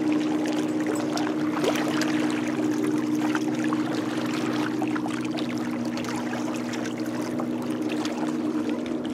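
A steady low engine drone holding a few fixed tones, with light water lapping against the shore rocks.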